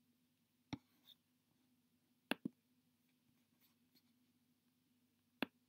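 Near silence with a faint steady hum, broken by four short, sharp clicks: one about a second in, a quick pair in the middle, and one near the end.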